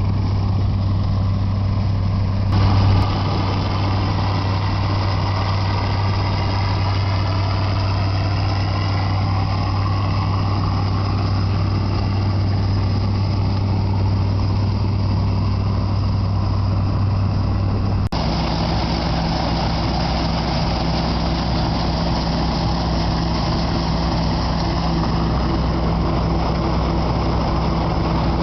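Massey Ferguson 525 combine harvester running steadily while combining wheat. About 18 seconds in, the sound changes abruptly to a different steady engine note.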